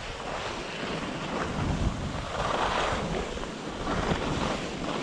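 Skis hissing and scraping over snow while skiing downhill, with wind buffeting the microphone; the hiss swells a little past halfway.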